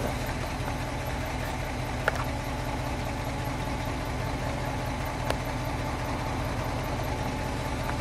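1956 Ford Thunderbird's 312 cubic-inch Y-block V8 idling steadily through its dual exhaust.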